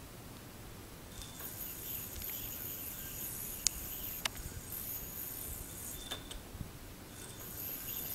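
Yo-yo spinning on its string: a faint high whir and string hiss that starts about a second and a half in, with two sharp clicks near the middle.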